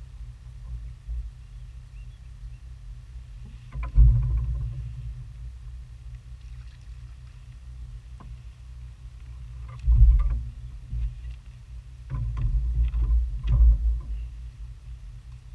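Knocks and thumps on a fishing boat as a crappie is hooked, swung aboard on a long spider-rig rod and handled: one about four seconds in, one about ten seconds in, and a cluster near the end. Underneath is a steady low rumble.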